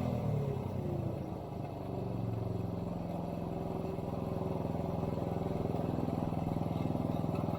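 Honda ATC70's small single-cylinder four-stroke engine coming down off a rev, its pitch falling over the first second or two, then idling steadily.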